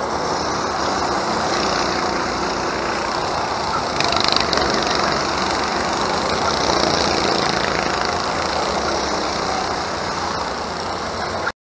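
Go-kart engines running as a pack of karts races through a nearby corner, a steady dense engine noise that swells as karts come close about four and seven seconds in, then cuts off abruptly near the end.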